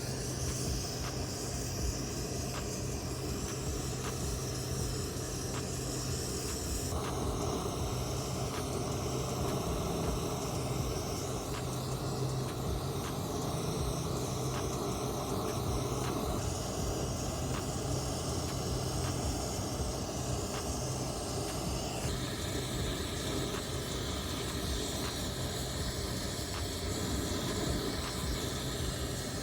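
Brazing torch flame hissing steadily while heating the copper line-set joints, over a low steady hum; the sound shifts abruptly a few times.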